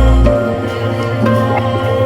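Background music: a sustained, many-layered instrumental with held notes over a deep drone, the drone dropping out about a third of a second in.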